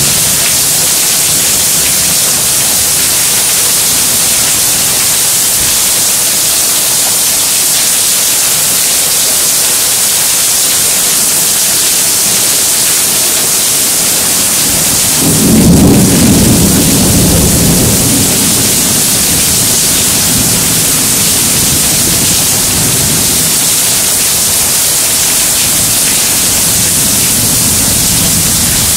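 Heavy rain falling steadily in a thunderstorm, with one peal of thunder about halfway through that breaks in suddenly as a low rumble and fades away over several seconds.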